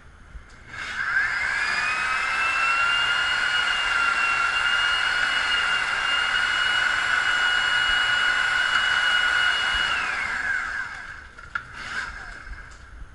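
A machine's motor whines as it spins up about a second in, runs steadily at high speed with a high-pitched whine, then winds down with falling pitch near the end.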